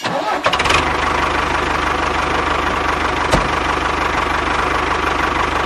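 A small engine starting up and then running steadily at idle with a fast, even pulse, with one sharp click a little past the middle.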